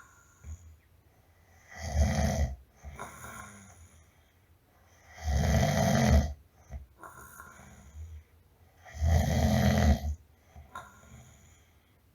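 A person snoring in slow, even breaths: three loud snores about three and a half seconds apart, each lasting about a second, with a quieter breath out between them.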